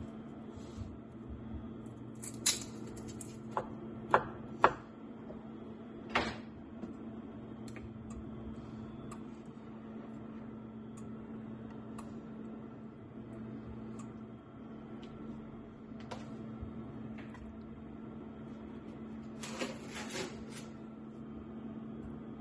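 Kitchenware being handled on a wooden counter: a handful of sharp clinks and knocks a few seconds in, and a short cluster of them near the end, over a steady low hum.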